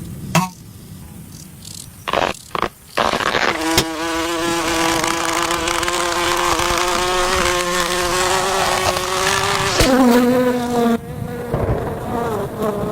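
A few short knocks, then a steady buzzing drone that holds one pitch for several seconds, drops lower about ten seconds in and wavers near the end.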